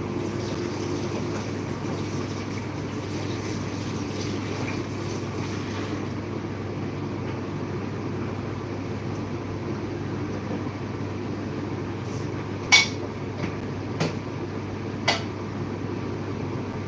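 Espresso machine running with a steady hum as coffee brews. Dishes clink three times near the end.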